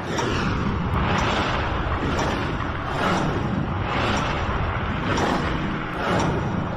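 Countdown sound effect: a whooshing swell over a steady low rumble, repeating about once a second in time with the ticking seconds.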